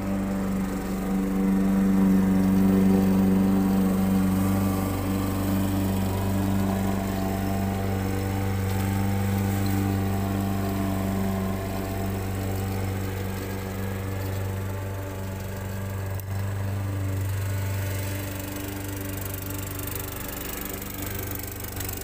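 Walk-behind lawn mower engine running steadily as the mower is pushed across the grass, a little louder in the first few seconds.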